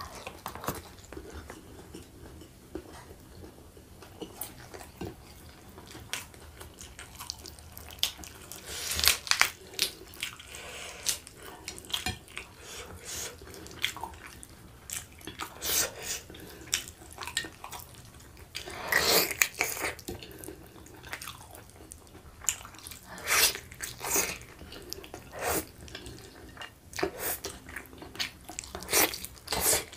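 Close-miked wet chewing and lip-smacking of a person eating rice and chicken rendang by hand: short sticky clicks and smacks come irregularly, in clusters with quieter chewing between them.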